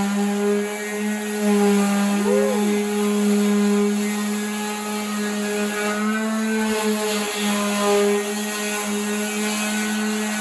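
Power sander running steadily while sanding a fender, a constant motor whine with a few brief wavers in pitch.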